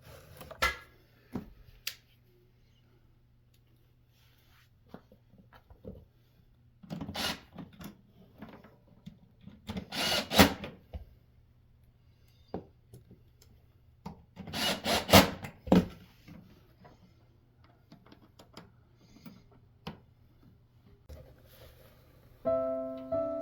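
Scattered clicks and knocks, with three scraping bursts of about a second each, from tools and parts being worked in a refrigerator repair, over a steady low hum. Piano music comes in near the end.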